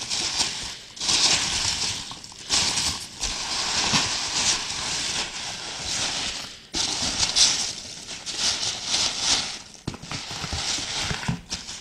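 A hand rummaging through foam packing peanuts in a cardboard box, the foam pieces rustling and rubbing against each other in irregular bursts.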